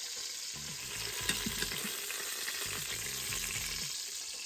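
Olive oil and chicken fat sizzling steadily in the hot stainless inner pot of an Instant Pot on sauté, with a few faint clicks of metal tongs.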